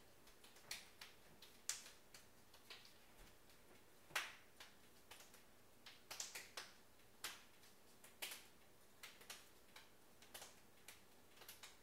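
Faint hand claps and palm slaps from two people doing a hand-clapping routine: short, sharp smacks at uneven intervals, a few louder ones standing out, such as one about four seconds in.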